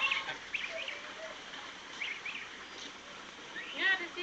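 Gosling peeping in short, high chirps, with a louder, lower call about four seconds in.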